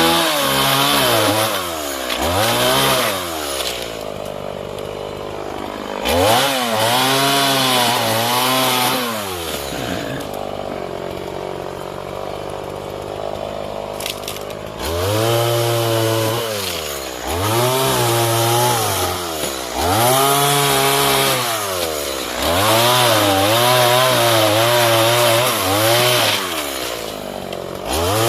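Stihl MS 180 two-stroke chainsaw revved in repeated bursts, its pitch rising and falling with each one. It drops to a steady idle for several seconds around the middle.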